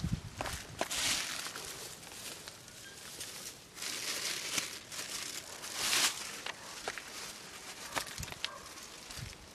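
Irregular rustling and crunching with scattered sharp snaps and clicks, swelling louder about a second in, near four seconds and near six seconds.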